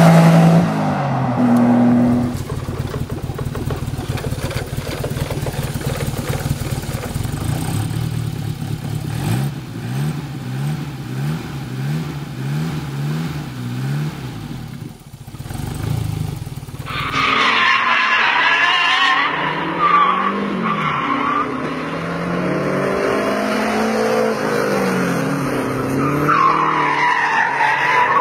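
Turbocharged car engines in a run of short clips: a car passing at speed, then a turbocharged straight-four revved by hand with its bonnet open, its pitch rising and falling. From about 17 seconds in, a Renault 5 Turbo is driven hard around a track with its tyres squealing.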